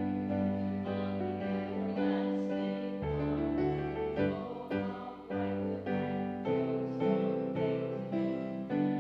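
Keyboard music playing slow, held chords with a sustained bass line, the chords changing every second or so.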